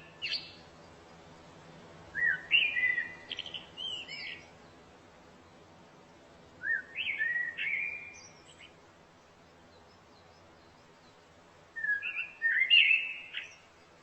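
A songbird singing three short phrases of quick rising and falling notes, several seconds apart, over a faint steady background.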